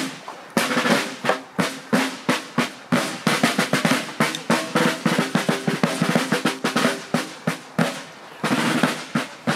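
Rope-tension field snare drums playing a marching cadence: quick, steady strikes mixed with rolls, with a short break near the end followed by a fresh roll.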